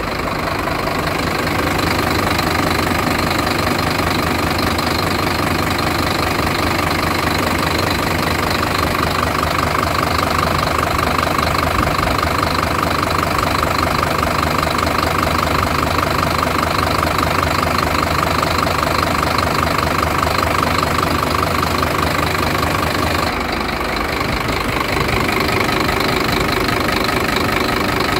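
Diesel engine of a 2009 Scania P-series truck idling steadily, heard close up at the open engine bay with the cab tilted forward, with an even rhythmic diesel clatter. The sound shifts slightly about 23 seconds in.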